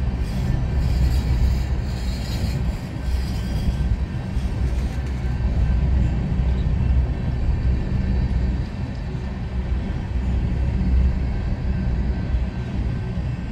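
Coal hopper cars rolling slowly past, a steady low rumble of steel wheels on rail that swells and dips as the cars go by.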